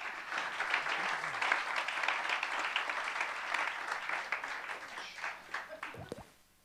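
Audience applause, dense clapping that dies away near the end.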